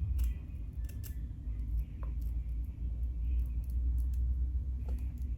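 Scissors snipping through the lace of a wig: scattered small, sharp snips over a low steady hum.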